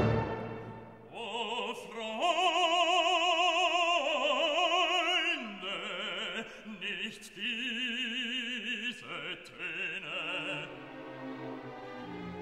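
Classical background music: an operatic voice holds long notes with a wide vibrato, stepping to a new pitch every second or two, and thins out near the end.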